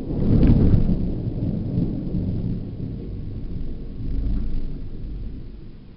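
Thunder: a crack about half a second in, then a long low rolling rumble that swells again around four seconds in before dying away.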